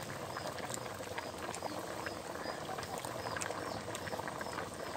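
Pork curry boiling hard in a large wok: a steady bubbling and spitting with many small pops. A short high chirp repeats about twice a second behind it.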